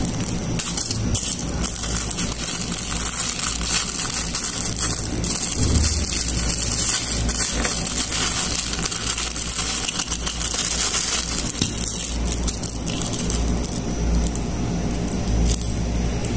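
Clear plastic packet of small fishing tackle crinkling and rustling as it is handled and opened by hand, with many small crackles, over a steady low hum.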